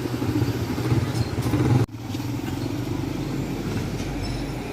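Small motorcycle engine running with a steady low rumble. It cuts out sharply for an instant about two seconds in, then carries on a little quieter.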